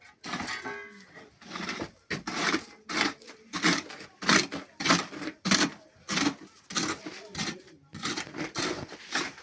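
A hand tool striking and scraping in a steady rhythm, about two strokes a second, as ground is worked for a stove foundation.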